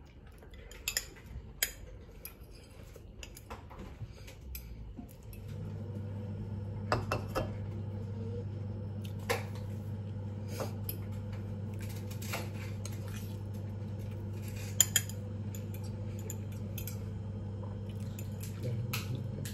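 A metal fork clinking and scraping against a ceramic bowl in scattered sharp clicks. About five seconds in, a steady low hum starts and carries on underneath.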